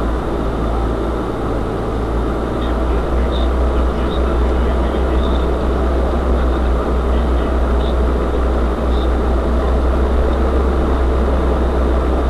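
UAZ-3909 'Bukhanka' 4x4 van driving over rough ground: a steady engine and drivetrain drone, with small clicks and rattles now and then.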